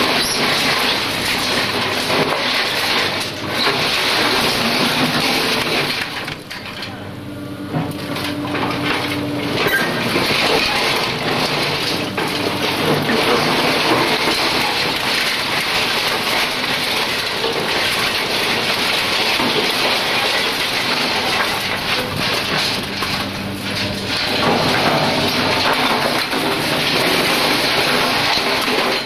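Demolition excavator's steel bucket crushing and dragging through rubble of broken brick, concrete and twisted metal: a dense, continuous crunching and grinding that eases briefly about six seconds in, then picks up again.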